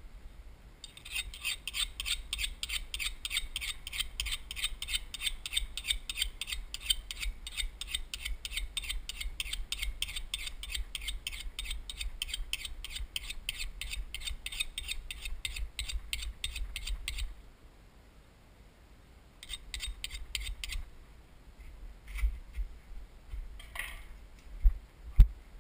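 A rapid, even ticking rattle runs for about sixteen seconds, stops suddenly, and comes back briefly. Near the end come a few knocks and thumps as the camera is handled.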